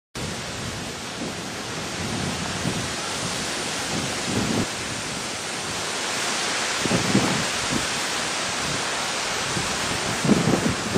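Tropical storm rain and wind as a steady heavy hiss, with low rumbling gusts swelling up a few times.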